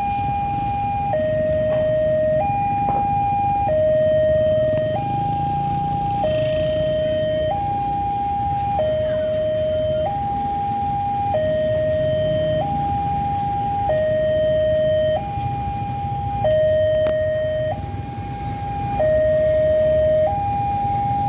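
Railway level-crossing warning alarm sounding: an electronic two-tone signal that alternates high and low, each tone held about a second, warning that a train is approaching. Under it is a steady low rumble of vehicle engines.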